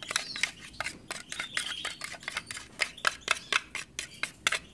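Metal spoon stirring thick hand-feeding formula in a plastic tray, clicking and scraping against the tray about four or five times a second as the powder and water are mixed smooth.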